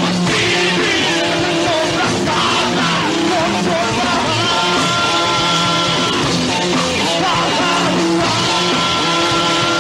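Live rock band playing: distorted electric guitars over bass and a drum kit. Long high notes are held about halfway through and again near the end.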